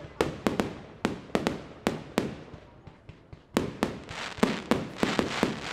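Fireworks display: about fifteen sharp bangs of bursting shells, each trailing off, with a short lull near the middle. From about four seconds in the bangs come thicker over a continuous crackling hiss.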